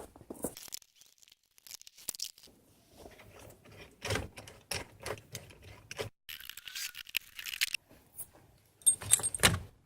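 Scattered clicks, scrapes and rustles of hard parts being handled, with a hiss lasting about a second and a half past the middle and a few louder knocks near the end.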